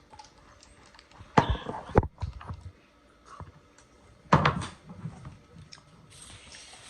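Eating sounds: cutlery and food containers knocking and clattering, with sharp knocks about a second and a half in, at two seconds and past four seconds, and smaller clicks between.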